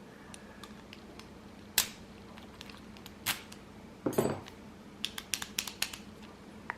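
Padlocks and a key being handled on a tabletop: scattered sharp metallic clicks and knocks, a single one now and then, then a quick run of small clicks near the end.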